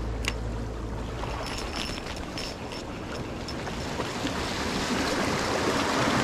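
Sea water washing and wind on the microphone, as a steady hiss that swells toward the end. There is one sharp click just after the start and a few faint light ticks.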